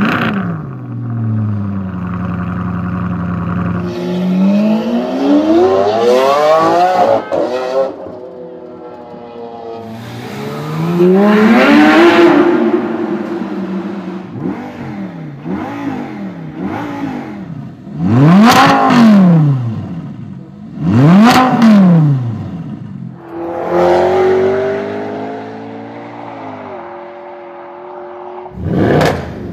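High-performance car engines revving repeatedly, each rev rising and falling in pitch. There is a long climbing rev about a quarter of the way in, and two quick, hard rev blips a little past the middle.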